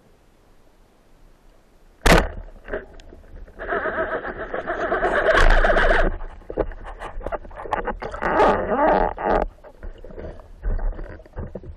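Underwater, a speargun fires with a single sharp crack about two seconds in. A speared fish struggling on the shaft follows, heard as rough gurgling noise in two stretches and scattered knocks while it is grabbed.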